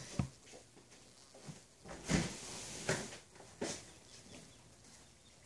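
Honeybees clustered in a screened package box humming faintly and steadily, broken by a few short bumps and rustles, the loudest about two seconds in.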